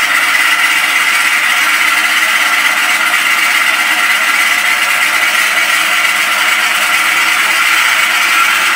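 A MrRCsound Aspire electronic sound system in a radio-controlled B-17G model, playing simulated Wright Cyclone radial engines running steadily through its speaker. The sound is thin, with almost no deep bass.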